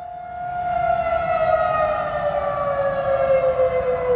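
Outdoor tornado warning siren sounding during a test, a sustained wail that holds its pitch and then, from about half a second in, slides slowly lower as the siren begins to wind down.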